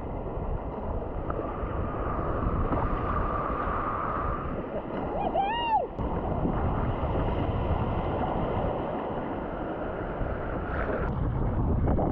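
Wind rushing over the microphone and ocean water washing around a sea kayak in swells. About five and a half seconds in, one brief high call rises and falls.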